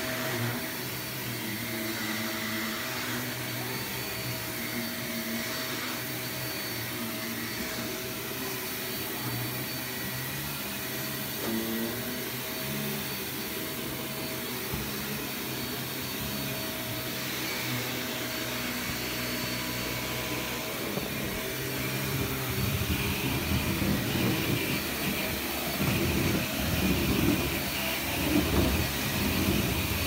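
Upright vacuum cleaner running steadily with a constant whine. In the last third, louder, uneven bumps and knocks come in over it.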